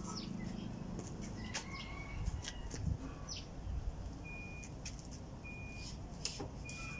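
Birds chirping: scattered short high calls and, in the second half, one brief high note repeating about once a second, over a low background rumble.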